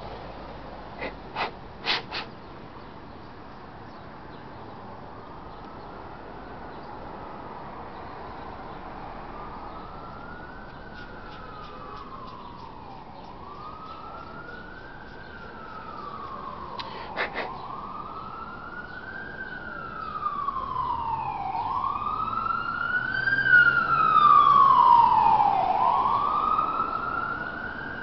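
An emergency vehicle's siren wailing, its pitch rising and falling in slow sweeps, growing from faint to loud and loudest in the last few seconds. A few sharp clicks a couple of seconds in and again about halfway.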